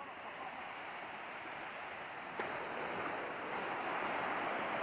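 Sea surf breaking and washing up a sandy beach in a steady rushing wash. A sharp click comes about halfway through, and the wash is louder after it.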